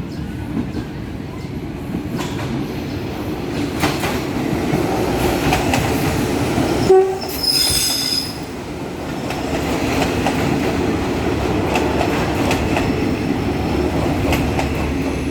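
Diesel-hauled passenger train rolling into a station, a steady loud rumble with wheel clatter. About seven seconds in there is a short sharp sound, followed by a shrill high squeal lasting about a second.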